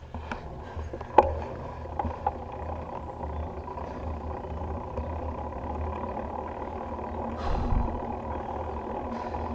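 Bicycle riding on pavement: wind rumbling on the handlebar-mounted GoPro and tyre noise on asphalt, building slightly as the bike gets under way. A few sharp clicks in the first couple of seconds, the loudest about a second in, and a short gust of wind near the end.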